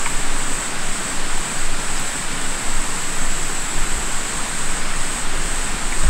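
Small rocky stream running over stones and little drops, a steady wash of water.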